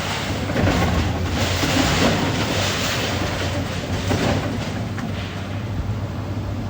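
A steady low engine rumble under a rushing noise that swells and fades every second or so.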